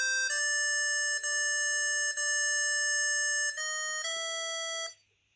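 COSUN 9958 mobile phone ringing with an incoming call: an electronic ringtone melody of stepped, held notes, one long note in the middle. It stops suddenly about five seconds in as the unanswered call ends, leaving a missed call.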